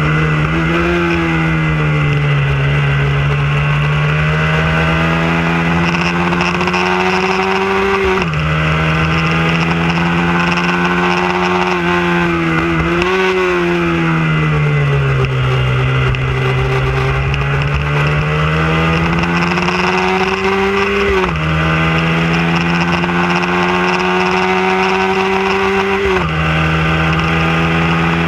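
Hyosung V-twin sport motorcycle engine at racing revs, heard from on the bike: the note climbs under full throttle and drops sharply at each upshift, four times, with a slower falling note midway as it slows and shifts down for a bend. A steady rush of wind runs under it.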